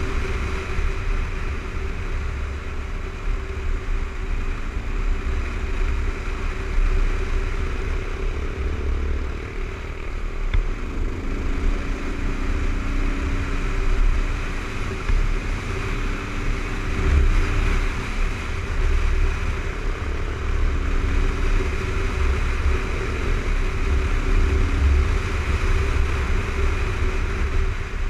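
Kawasaki KLR 650's single-cylinder four-stroke engine running at a steady riding pace, its pitch rising and falling a little with the throttle, under heavy wind buffeting on the microphone and tyre noise on a dirt road.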